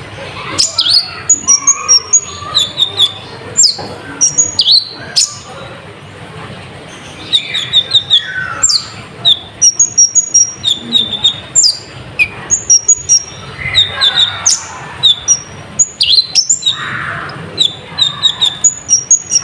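A konin (kolibri ninja, a small sunbird) singing hard: a rapid, loud string of high, sharp chirps and short trills in runs, with a brief lull about a third of the way through.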